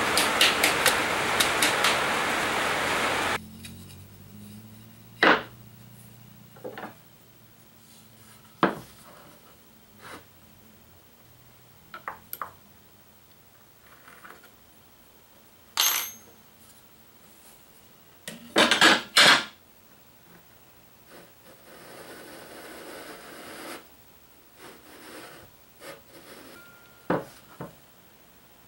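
Hard clicks and knocks of a router base plate and a turned ring insert being handled and set down on a workbench, with a cluster of sharp taps about two-thirds of the way through. It opens with a loud steady noise that stops abruptly after about three seconds.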